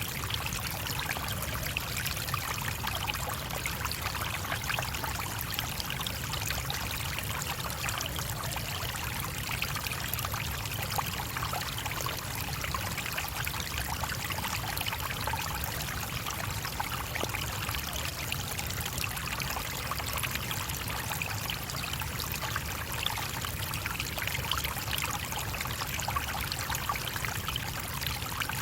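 A shallow stream running steadily, water trickling and gurgling over stones, with an even rushing wash that does not change.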